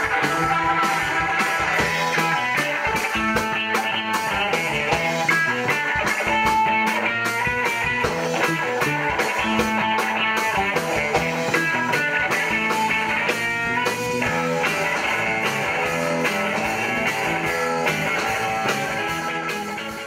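A rock band playing, with guitar and drums over a busy run of notes. The music drops off at the very end.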